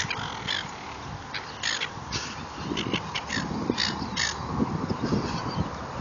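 A flock of silver gulls calling: about a dozen short cries at irregular intervals, some overlapping, over a low rumble.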